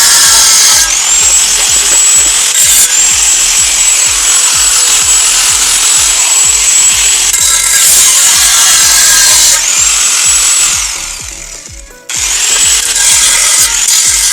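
Electric power tool cutting into the sheet steel of a motorcycle fuel tank, a loud rasping with a high motor whine. It spins up about a second in and runs steadily, winds down about eleven seconds in, then starts again near the end.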